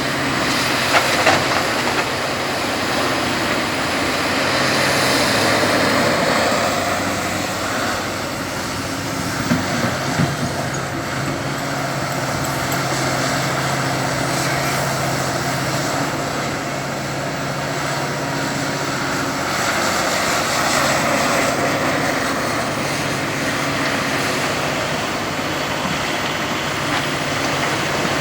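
Large tracked excavator's diesel engine running steadily under working load, its pitch shifting as it works, with a few short metallic knocks near the start and about ten seconds in.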